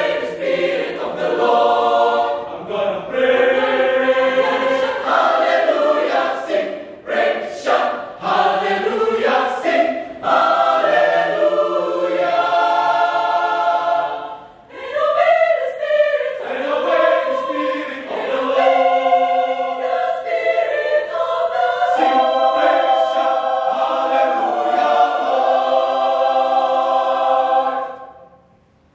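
Mixed choir of men's and women's voices singing in harmony, unaccompanied, ending on a long held chord that cuts off about a second before the end.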